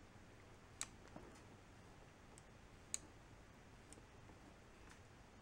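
Work-light rocker switch on a Harbor Freight 5-in-1 portable power pack clicking as it is pressed: two sharp clicks about two seconds apart, with a few fainter ticks around them. The switch is being worked to show the intermittent LED work light, a fault caused by high-resistance contacts in the rocker switch.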